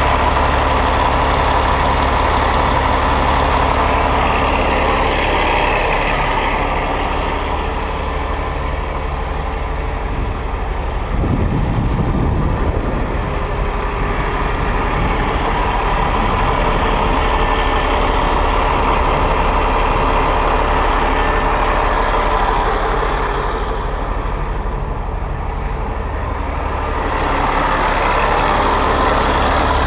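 A Peterbilt 389's Cummins ISX15 diesel engine idling steadily, with a short rush of noise about eleven seconds in.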